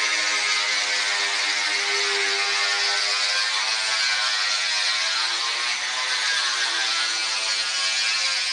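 Power tool with a diamond core bit running steadily while it cuts a hole through a granite slab, a whining motor over a gritty hiss; the motor's pitch sags a little under load about halfway through and recovers.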